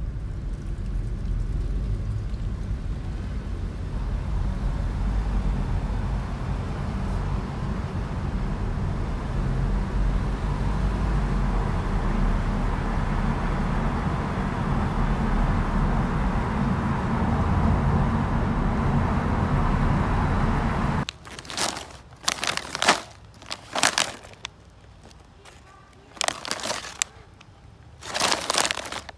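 Steady low road and engine rumble of a car driving, heard inside the cabin. About two-thirds of the way through it cuts off and gives way to repeated crinkling of a plastic freeze-dried meal pouch being handled.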